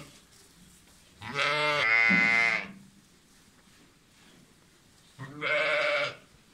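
Zwartbles sheep bleating twice: a long bleat about a second in that lasts about a second and a half, and a shorter one near the end.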